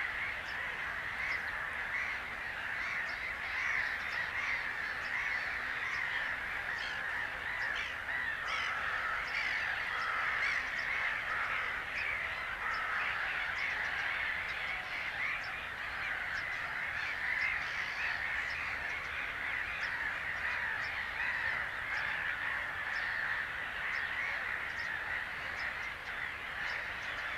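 A flock of many birds calling at once in a dense, unbroken chorus of harsh, overlapping caw- and honk-like calls, holding steady throughout.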